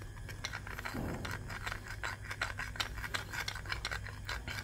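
Metal spoon stirring cornflour-and-water slurry in a small ceramic bowl, clinking and scraping against the bowl in quick, irregular ticks.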